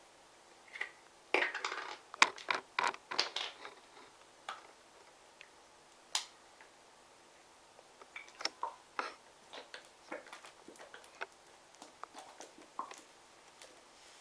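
Plastic containers and bottles being handled and set down: scattered sharp clicks, taps and crinkling in two bursts, with a single sharp click in between.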